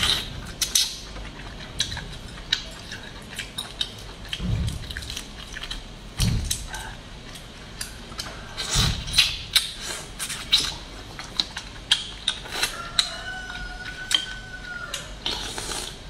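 Cooked crayfish shells cracking and being peeled by hand, with wet sucking and chewing: many small sharp crackles and clicks, a few soft low thuds, and a short held tone about thirteen seconds in.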